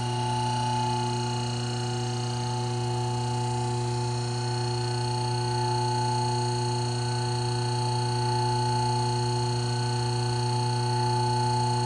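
Hydraulic hose crimper's pump motor running with a steady, even hum as the crimper closes its dies fully.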